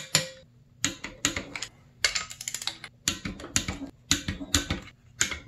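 Torque wrench ratcheting in short bursts of sharp clicks, about two a second, while motor-mount bolts are tightened down.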